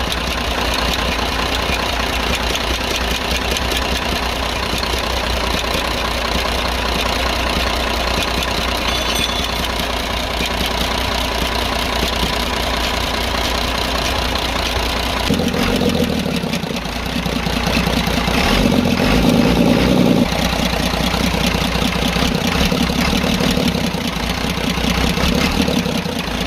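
Cummins 24-valve six-cylinder truck diesel running at idle just after start-up, with a stretch of a few seconds about midway where it runs harder and louder. The valve-train noise has come back, which the mechanic takes for the number 1 rocker having worked loose again after the tappet adjustment.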